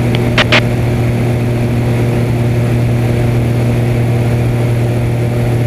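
Extra 300 aerobatic plane's engine and propeller droning steadily in cruise, heard from inside the cockpit, with an even, unchanging pitch.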